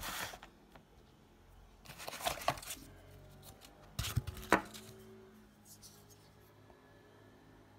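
Cardboard box and foam packaging being handled: three short scraping rustles about two seconds apart, the last with a dull knock.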